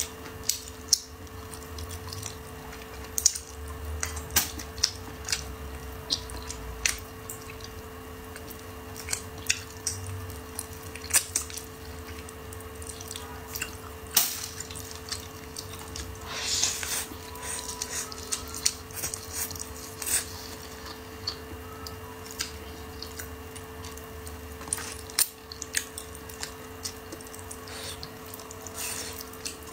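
Close-up eating sounds of braised pig's trotter: wet chewing, sucking and lip smacks, with scattered sharp clicks from chopsticks and the plate. A faint steady hum sits underneath.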